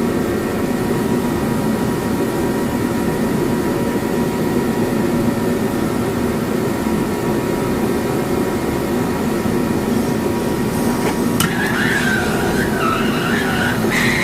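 A steady mechanical drone made of several held tones, like a running motor or vehicle. From about eleven seconds in, a wavering higher-pitched sound rides over it.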